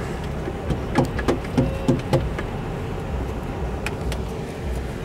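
Steady low rumble of a car's cabin while driving, with a quick run of five or so short knocks between about one and two seconds in.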